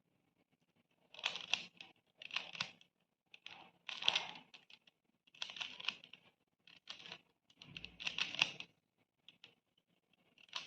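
Plastic triangle Rubik's puzzle (Pyraminx) being twisted by hand: its layers click and rattle in about seven short bursts with brief pauses between them.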